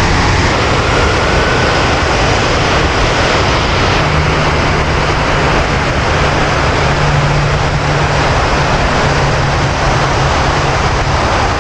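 Steady loud rush of water pouring down the walls of the 9/11 Memorial's North Pool waterfall, with a low hum beneath it.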